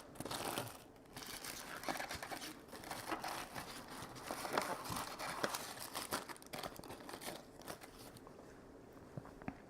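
Packaging wrap crinkling and tearing in irregular handling as statue parts are unwrapped, dying down near the end.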